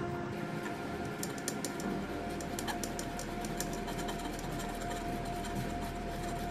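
Boiled potatoes being grated by hand on a flat stainless-steel grater resting on a plate: a quick, irregular run of soft scraping clicks.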